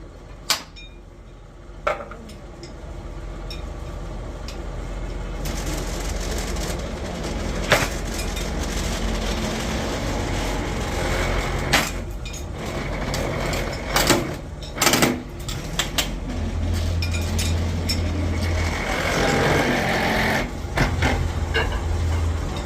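Workshop machinery running steadily, building up after the first few seconds, with sharp metal knocks and clanks now and then during work on a bulldozer track chain.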